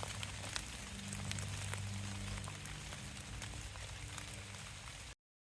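Rain falling steadily, a soft even hiss with scattered sharp drop ticks, under a low steady hum. The sound cuts off suddenly near the end.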